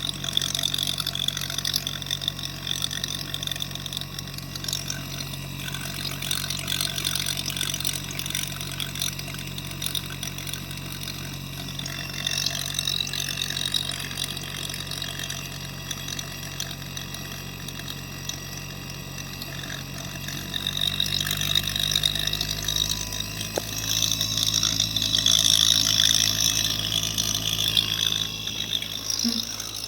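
LG inverter refrigerator compressor running with a steady hum, its line spitting and hissing as it throws out oil. The technician reads this as weak pumping: it throws oil but builds no pressure. The hum shifts to a different pitch about two-thirds of the way through, and the hissing grows louder near the end.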